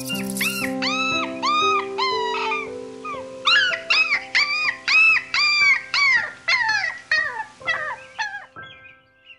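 A dog, likely a puppy, giving a rapid series of short, high-pitched yips and whines, each call rising and falling, with a brief pause about three seconds in.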